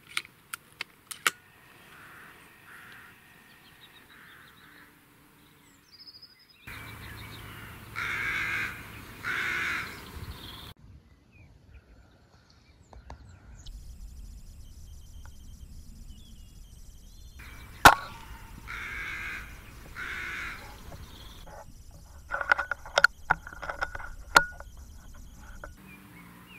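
Crows cawing from the trees, two caws at a time, twice. Between them comes a single sharp crack from a .25 Brocock pre-charged pneumatic air rifle being fired, the loudest sound. A run of small clicks follows near the end.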